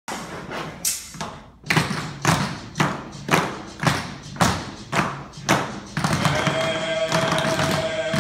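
A steady beat of sharp thumps, about two a second, ringing briefly in the room, then music starts about six seconds in.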